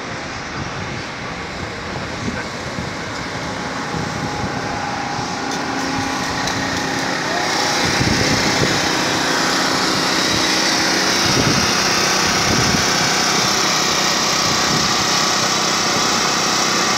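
Rough traffic and road noise, then from about eight seconds in the steady drone of a small portable gasoline generator running, cabled to a food truck to power it.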